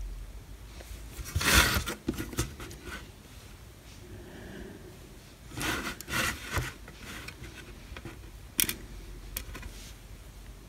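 Handling noise from fingers working a small EEPROM chip and a TV mainboard on a table: brief rubbing and scraping scuffs, the loudest about a second and a half in, another cluster around six seconds in, and a short sharp tick later on.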